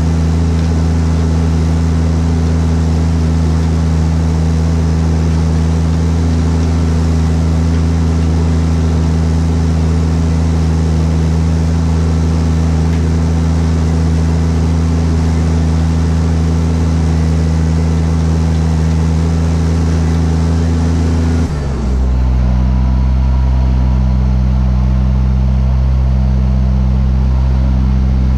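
Fendt 820 Vario tractor's Deutz six-cylinder diesel engine running steadily. About three-quarters of the way through, the engine note changes suddenly to a lower steady drone.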